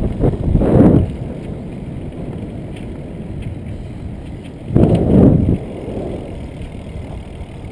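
Wind rushing over a riding cyclist's camera microphone, a steady low rumble with two loud gusts of buffeting, one in the first second and another about five seconds in.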